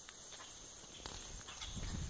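Footsteps crunching through dry leaf litter, starting about a second in and getting louder, over a steady high-pitched insect drone.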